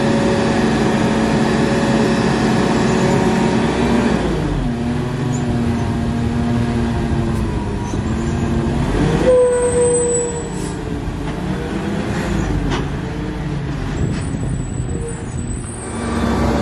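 Lodal EVO garbage truck's engine running at raised revs. It drops to a lower pitch about four seconds in, rises and falls again near the middle with a few knocks, and revs up again near the end, the speed-up typical of a truck driving its lift and packer hydraulics.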